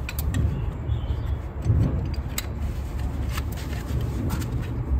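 Brake caliper being hung on a hook from the coil spring: a few sharp metal clicks, the loudest about halfway through, over a low rumble.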